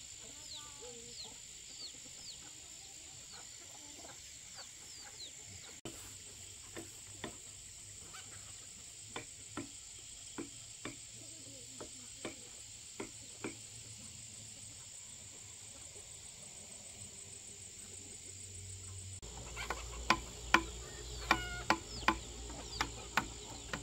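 Rural outdoor ambience: chickens clucking and small birds chirping over a steady high insect drone. Near the end comes a run of loud, sharp knocks.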